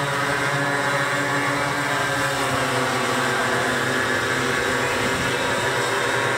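Small model-aircraft engines running steadily, a dense drone of several pitches at once with no change in speed.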